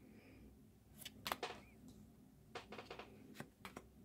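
Stiff baseball cards flipped by hand through a stack, each card slid off and tucked behind the others, making faint papery clicks and rustles. There is a cluster about a second in and a run of them near the end.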